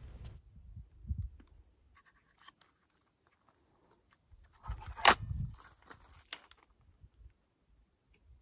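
Break-barrel .22 air rifle being loaded and readied: faint ticks as a pellet is seated in the breech, then a loud clack with a dull thump about five seconds in as the barrel is snapped shut, and one sharp click just over a second later.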